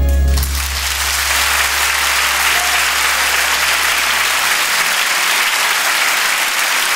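A guitar piece ends about half a second in, and an audience applauds steadily through the rest.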